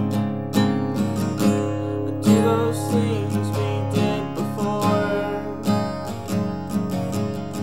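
Acoustic guitar strummed in a steady rhythm, with a man's voice singing along over it in phrases.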